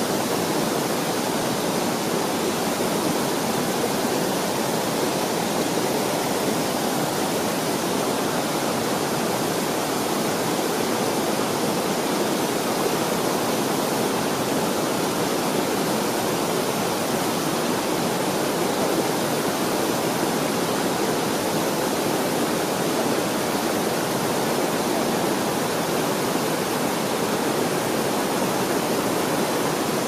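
Waterfalls and a cascading mountain stream rushing over boulders: a steady, unbroken wash of water noise, fullest in the low-middle range.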